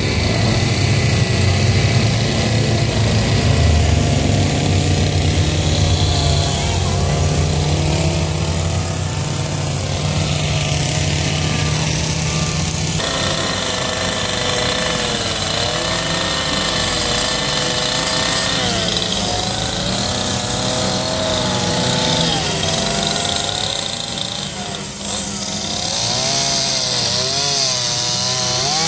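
Gas chainsaws running and cutting into logs for carving, the engine pitch rising and falling as the throttle is worked.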